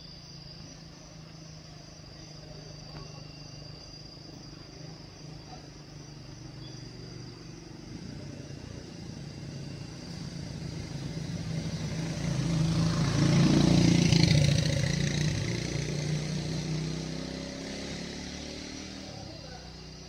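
A motor vehicle's engine passing by: it grows louder over several seconds, is loudest a little past the middle, then fades away.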